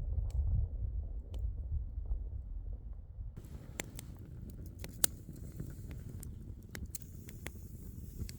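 Low rumble of wind buffeting the microphone, then, after a cut, a campfire crackling with scattered sharp pops, one loudest about five seconds in.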